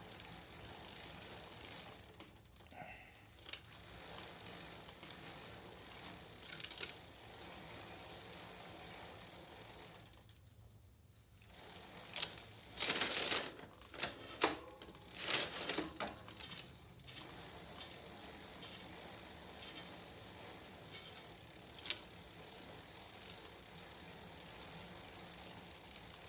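A cloth rag wiping and rubbing a bicycle chain dry, heard as a few short scrubbing, rattling bursts around the middle. Under it runs a steady high-pitched trill.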